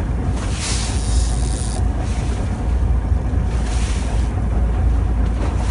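Steady low rumble of a fishing boat at sea, with wind on the microphone and washes of hiss from wind and water about half a second in and again near four seconds in.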